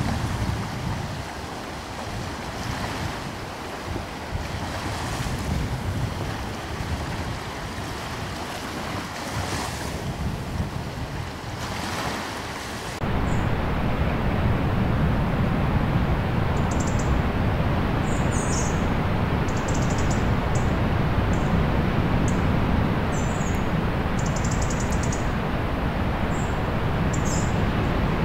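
Waves washing in slow swells, as in a nature ambience track. About halfway through it cuts abruptly to a louder, steady rushing noise with faint high chirps scattered over it.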